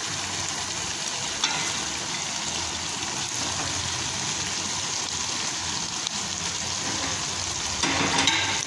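Chicken and masala sauce sizzling in a pot on the stove, a steady frying hiss, with a light click about a second and a half in and a short clatter near the end.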